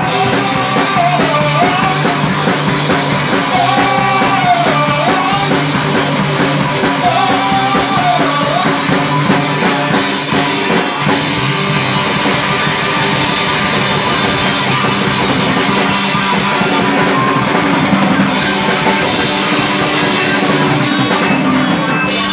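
Live rock band playing loudly: electric guitars and bass over a drum kit, a dense, continuous rock sound that does not stop.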